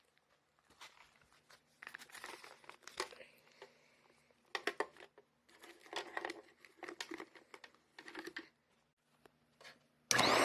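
Paper vacuum cleaner bag crinkling and rustling in irregular bursts with small clicks and knocks as it is handled and fitted into the vacuum. Right at the end the vacuum cleaner switches on, its motor whine rising quickly to a loud steady run.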